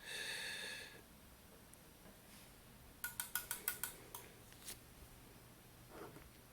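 A short high electronic beep, then about a second of quick clicks, roughly eight of them, each with a brief high beep, and one more click shortly after. These are the buttons or controls of the electronic test gear being pressed.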